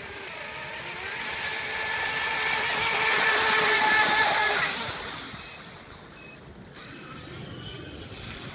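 Brushless electric RC boat passing at speed: a high motor whine with the rush of its spray grows louder, peaks about four seconds in, then drops in pitch and fades as the boat goes by.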